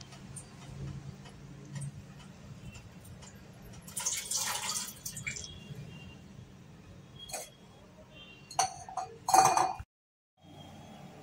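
Light clinks and knocks over a low steady hum, with a short rustling noise about four seconds in and a few louder clinks near the end, followed by a brief dropout.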